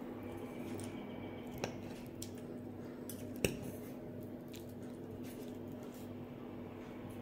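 Metal knife and fork clicking and scraping on a glass plate while cutting and picking up food, with two sharper clinks, about a second and a half and three and a half seconds in, the second the loudest. A steady low hum runs underneath.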